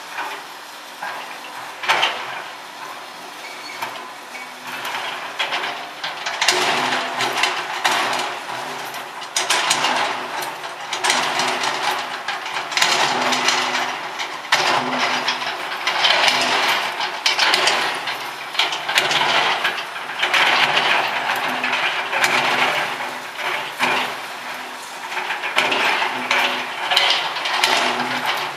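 Hyundai hydraulic excavator at work: its engine runs under load while metal debris clanks, scrapes and crunches again and again, in uneven surges.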